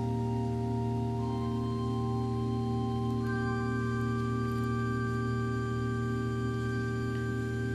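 Church organ playing slow sustained chords over a held bass note, the upper voices moving to new notes about a second in and again about three seconds in.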